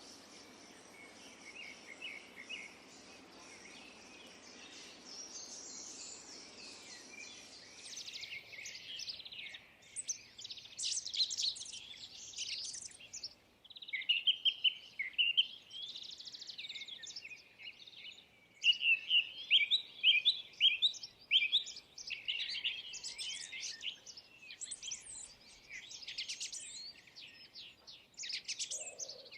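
Small songbirds chirping and singing: faint over a steady low background hiss at first, then louder and busier from about eight seconds in, with quick repeated chirps and trills.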